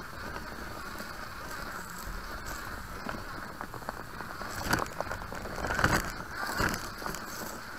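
FTX Ravine RC trail crawler driving over dirt and leaf litter: a steady motor and gear hum with tyre and ground noise. Past the middle come a run of louder crunches and knocks as it pushes into the undergrowth.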